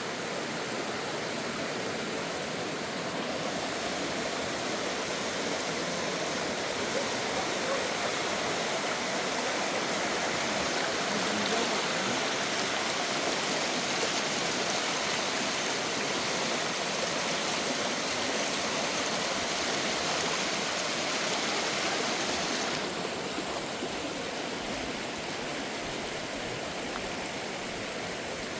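Steady rushing of flowing water. It grows brighter and a little louder about three seconds in and eases back about 23 seconds in.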